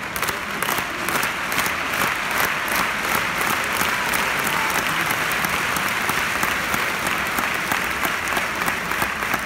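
Arena crowd applauding, a dense steady wash of clapping that swells just as it begins.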